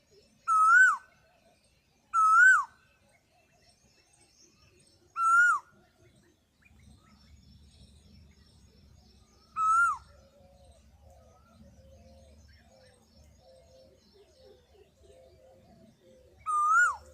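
Peacock calling: five loud, short calls, each rising and then dropping sharply in pitch, spaced irregularly a few seconds apart.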